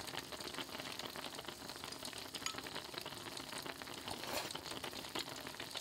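Faint steady crackling and sizzling, dense with small sharp clicks, a little louder about four seconds in.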